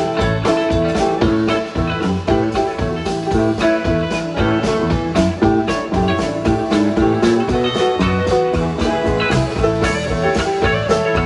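A live band playing with electric guitar over bass, keyboard and drum kit, at a steady beat.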